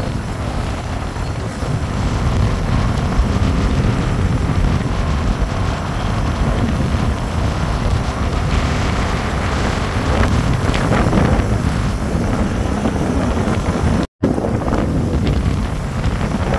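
Wind rushing over the microphone of a moving motorcycle, with the bike's road and engine noise underneath. The sound is a loud, steady rumble, heaviest in the low end, and it cuts out for an instant near the end.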